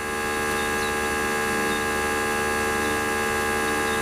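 Xiaomi 70mai portable 12 V tyre compressor running steadily with an even buzzing hum as it pumps a car tyre up to its preset 32 PSI.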